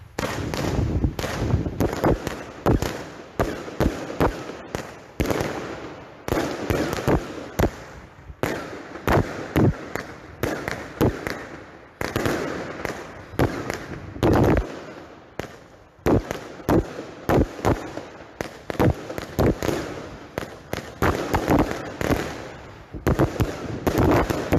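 Argento 'Green Thunder' 49-shot titanium salute firework battery firing: a fast series of loud bangs, about two a second, going on until near the end.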